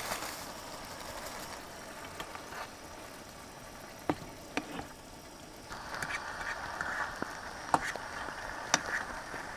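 Ground beef cooking in a skillet on a propane camp stove: a low steady sizzle, a little louder from about six seconds in, with a few light clicks and scrapes of a fork stirring the meat in the pan.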